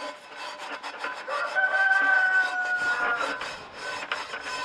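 Steel wool scrubbing a wet Wagner cast iron skillet in short repeated strokes. A rooster crows once, a long call of about two seconds starting just over a second in, the loudest sound here.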